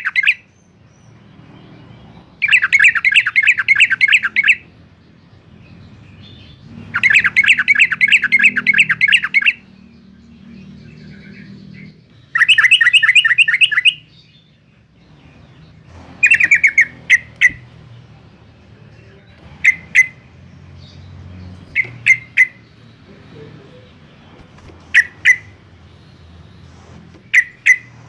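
Yellow-vented bulbul (Pycnonotus goiavier) calling loudly in rapid chattering bursts. There are three runs of fast repeated notes of about two seconds each, then from about halfway short clusters of two or three notes every few seconds.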